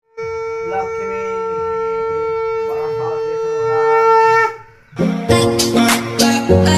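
Conch shell blown in one long steady note, growing slightly louder before it cuts off about four and a half seconds in. Then music with strummed guitar starts.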